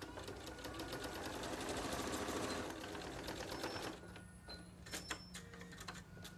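Electric domestic sewing machine stitching at a fast, steady rate through layers of fabric for about four seconds, then stopping. A few light clicks follow about a second later.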